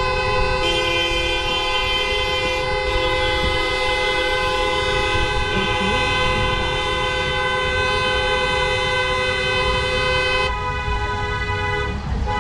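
Several vehicle horns held down together in a long, steady blare, with a low rumble of engines and road noise beneath. Some of the horn tones drop out about ten seconds in while others keep sounding.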